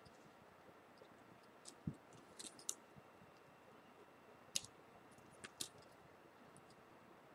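A few faint, scattered small clicks and taps from Samsung Galaxy S4 parts being handled as their ribbon-cable connectors are pressed onto the motherboard, at irregular moments with near silence between.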